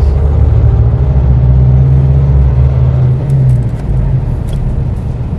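Car engine and road noise heard from inside the cabin while driving, a loud steady low rumble, with a few faint clicks partway through.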